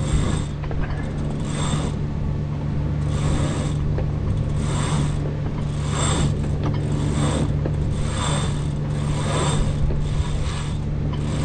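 Sailboat headsail sheet being hauled in hand over hand, the line whirring through its blocks and ratcheting around a winch in repeated pulls about every second and a half. The boat's engine hums steadily underneath.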